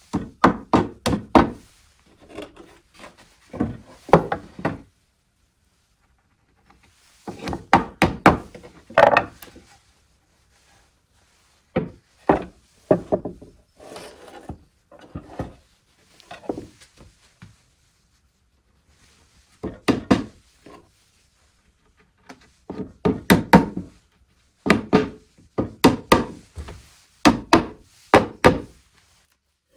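Wooden knocks and thunks on a wooden table, in loud clusters of several quick strikes with short pauses between.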